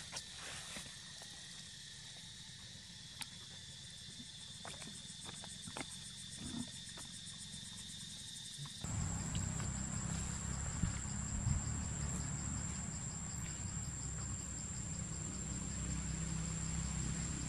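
Steady, high-pitched insect drone, with a few faint clicks. About nine seconds in, the sound changes abruptly to a higher insect tone over a low rumble.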